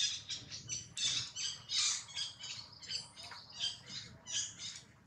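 Baby macaque crying: a rapid string of short, high-pitched squeals, several a second, that stops just before the end.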